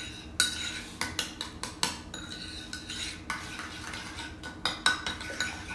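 A spoon stirring a thick ketchup, brown sugar and mustard glaze in a small ceramic bowl, clinking against the bowl in quick, irregular strokes.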